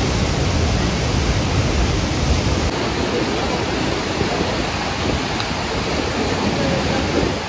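A waterfall and the rapids below it in heavy flood: a loud, steady rush of churning muddy water. The deep rumble under it eases about three seconds in.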